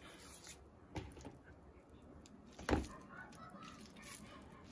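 Quiet handling of cooked rice in a ceramic bowl, with a light knock about a second in and a louder knock a little under three seconds in.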